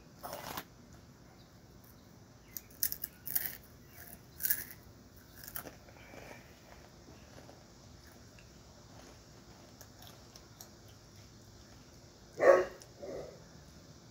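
A dog barks once, loudly and sharply, about twelve seconds in, with a weaker second bark just after. Before that, a few short, sharp crackles.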